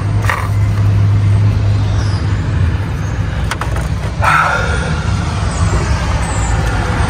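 A vehicle engine running steadily with a low hum, with street traffic around it. About four seconds in, a louder noise sets in suddenly and continues.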